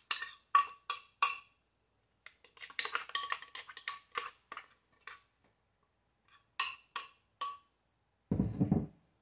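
The jar of a food chopper being knocked and scraped against a bowl to empty out ground crumbs: clusters of sharp clinks with a short ringing note, then a single low dull thud near the end.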